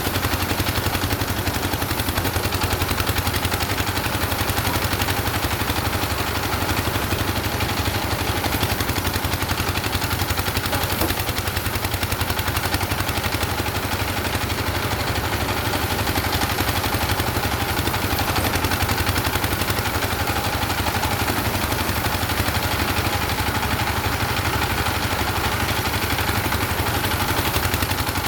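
An engine running steadily at a constant speed with a fast, even chugging, like a harvest machine at work.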